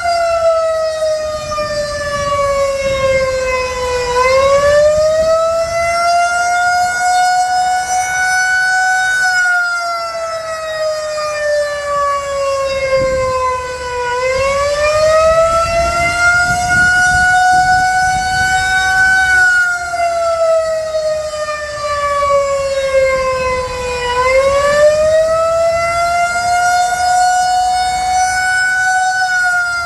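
Federal Signal 2001-130 outdoor warning siren sounding the attack signal. It is a slow wail that climbs, holds high for a few seconds and slides back down, repeating about every ten seconds.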